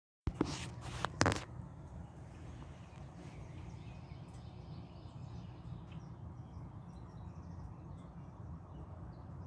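Three sharp knocks in the first second and a half, then steady low outdoor background rumble with faint scattered bird chirps.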